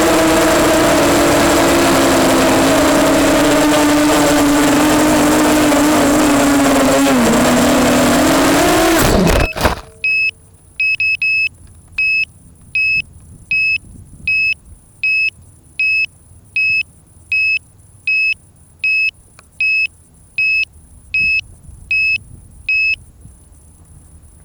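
EMax Nighthawk 250 quadcopter's brushless motors and propellers whining steadily, the pitch dipping and rising again, then cutting off suddenly about nine and a half seconds in. After that comes a run of short high electronic beeps, about one every 0.7 seconds, which stop near the end.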